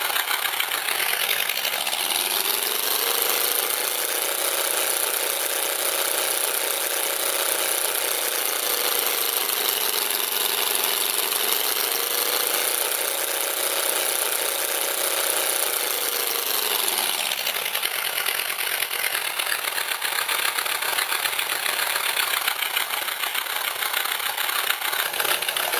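RC sound generator module playing a recorded Wright Cyclone radial aircraft engine through its speaker. It idles, revs up after about two seconds, holds the higher revs with a slight sag in the middle, then drops back to idle about two-thirds of the way through.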